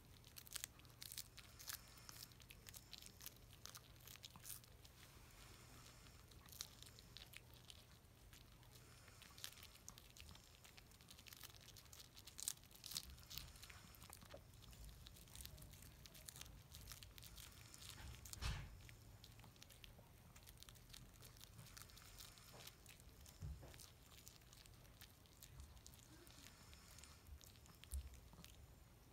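Chihuahua faintly crunching and chewing a raw napa cabbage leaf: scattered soft crunches and tearing sounds, with a few louder crunches.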